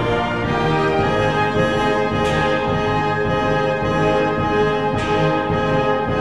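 Brass band music, with sustained brass chords and a sharp accent about every two and a half to three seconds.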